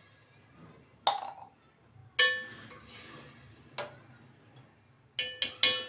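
A metal spoon knocking against a steel cooking pot while the contents are stirred: about six sharp clinks that ring briefly, the last three close together near the end.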